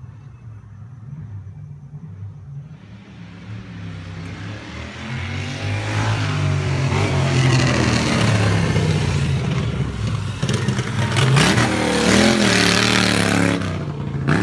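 Racing lawnmower engine running. It grows much louder from about four seconds in and stays loud, its pitch rising and falling as it is revved.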